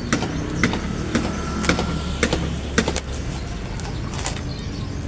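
Scissors snipping and cutting through plastic packaging wrap, with irregular sharp snips and crackles over a steady low rumble.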